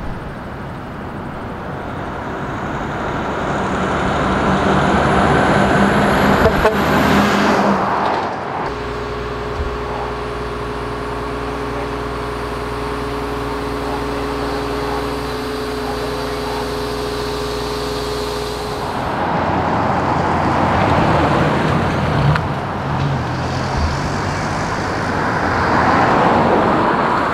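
Heavy haulage truck with a long load going by, its engine and tyre noise building as it approaches, with a faint high whine rising in pitch. About eight seconds in this cuts suddenly to an engine running steadily with a hum of several even tones, and about nineteen seconds in it changes again to road traffic noise as vehicles pass.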